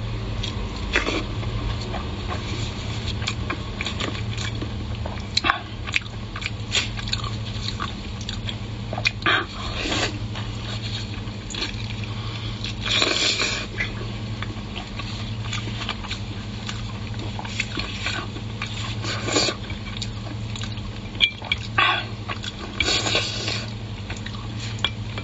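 Close-up eating sounds: a person biting, tearing and chewing spicy braised meat, with irregular wet smacks and tearing noises from the mouth over a steady low hum.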